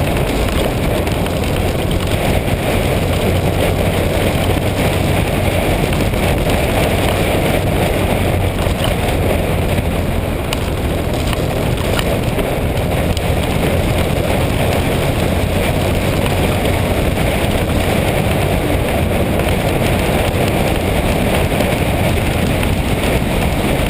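Motorcycle riding at a steady pace: wind rushing over the microphone, with engine and road noise underneath. It holds even throughout.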